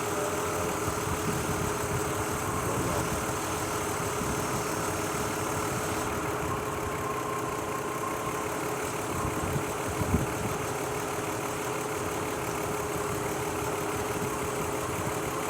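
2003 Mazda Tribute's V6 engine idling steadily with a misfire, which the owner puts down to oil leaking from the valve covers into the spark plug wells and letting the coils arc. A single short knock about ten seconds in.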